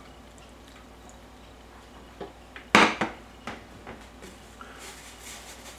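A spatula knocking against a ceramic mixing bowl and a cooking pot: a few clacks starting about two seconds in, the loudest a sharp knock a little before the middle, with lighter ones just after.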